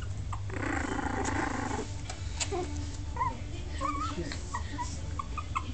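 Pomeranian–Yorkie cross puppies: a short puppy growl about half a second in, lasting just over a second, then a run of brief high whimpers and squeaks.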